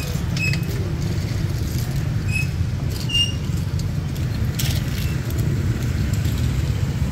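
Open-air market ambience dominated by a steady low rumble, with a few short high chirps or squeaks and faint clicks scattered through it.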